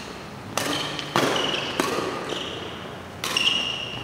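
Badminton rackets striking a shuttlecock during a doubles rally: four sharp hits, the first three in quick succession and the last after a pause of over a second, with short high-pitched squeaks between them.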